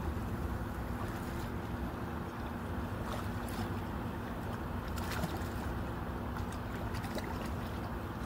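Steady wind and small waves lapping on a stony lakeshore, with a steady low hum underneath and a few faint clicks.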